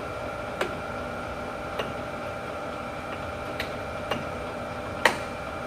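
PROMAX 26 by 90 gap lathe running with its power cross feed engaged: a steady mechanical hum with a few sharp clicks at uneven intervals, the loudest about five seconds in.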